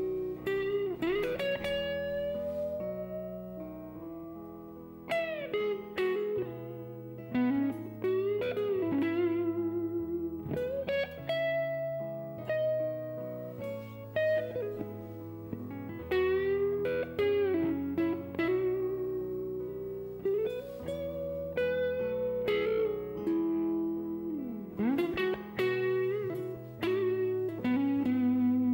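Electric guitar playing a slow melody, plucked notes with string bends up and down and wide vibrato on the held notes, over low held notes that change every couple of seconds.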